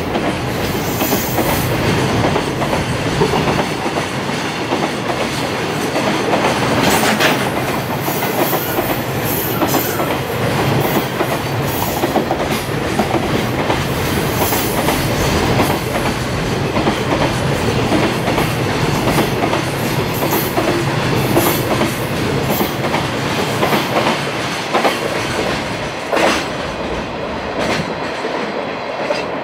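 Long container freight train passing, its wagon wheels clattering over the rail joints in a steady run of clacks. It grows a little quieter near the end as the last wagons go by.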